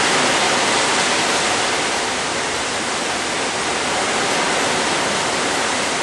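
Heavy rain pouring down in a thunderstorm: a loud, steady hiss of rainfall.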